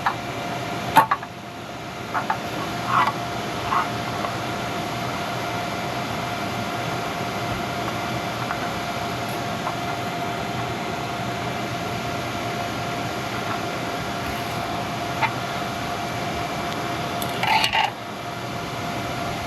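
Steady whir of a running fan with a constant faint whine. A few light clicks and clinks sound about a second in, again over the next few seconds, and in a short cluster near the end.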